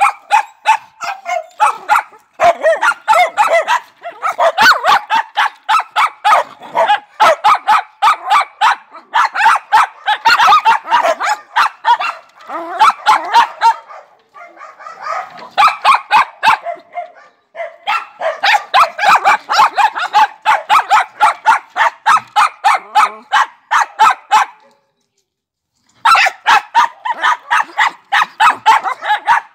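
Small dog barking rapidly and without let-up, short high yaps at about three a second in long runs, broken by a few brief pauses and a full stop of about a second near the end.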